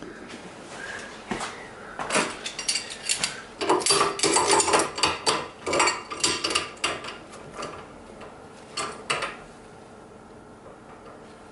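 Steel gear puller's jaws and arms clinking and rattling against a Schaublin 22 mill's gear cluster held in a vise, as the puller is fitted to pull off a glued-on gear. A busy run of metallic clatter about two seconds in, two last clinks near nine seconds, then it settles.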